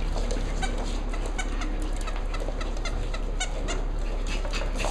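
Cavalier King Charles spaniel puppies giving short, high yips and squeaks at play, several a second.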